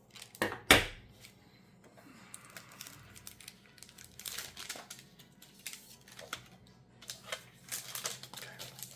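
A Magic: The Gathering booster pack's foil wrapper being torn open and crinkled. Two sharp rips come within the first second, followed by scattered crinkling.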